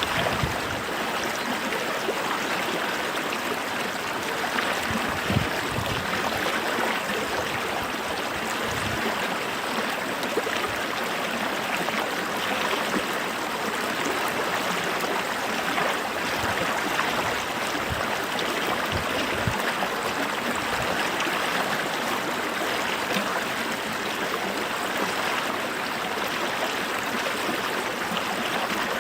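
A small stream or creek running over rocks: steady rushing and babbling water with small gurgles and splashes throughout.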